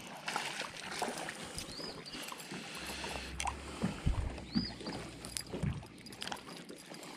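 Light, irregular knocks and clicks of fishing tackle and boat handling as a small bass is reeled up to a bass boat.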